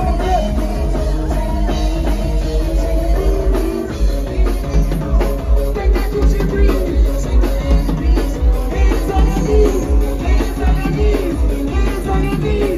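Loud music with singing over a heavy, pulsing bass beat, played through a music truck's speaker stacks. The bass thins out just before four seconds in, then comes back in strong beats about twice a second.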